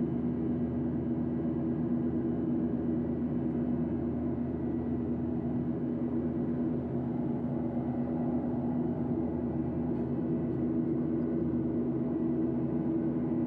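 Steady cabin noise of a Boeing 737-800 in flight: an even drone of engines and airflow with a low, unchanging hum.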